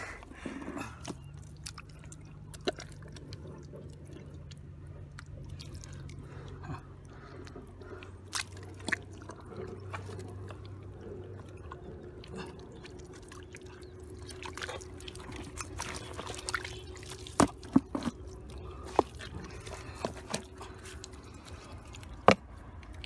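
Shallow paddy-field water splashing and dripping as it is stirred by hand, in scattered short sharp splashes that come more often near the end.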